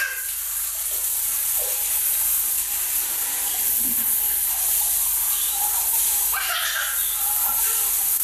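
Shower water running, a steady spraying hiss.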